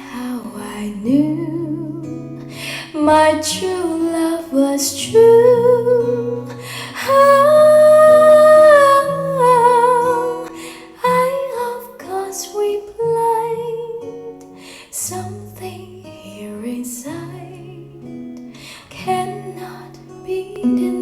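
A song with a woman singing over plucked acoustic guitar and a bass line, played back through a hi-fi stereo amplifier and loudspeakers. The voice holds long notes with vibrato and is loudest about seven to nine seconds in.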